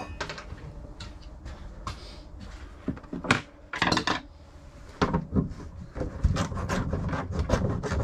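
Handling noises around a car's front hood and hinge: scattered knocks and clicks, a few louder ones in the middle, coming thicker in the last two seconds as hands and tools start on the hinge.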